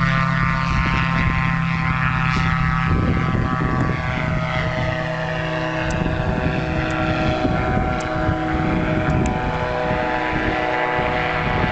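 Engine and propeller of a Subaru-engined Mignet HM1000 Balerit ultralight running steadily during a touch-and-go, its tone changing about three seconds in.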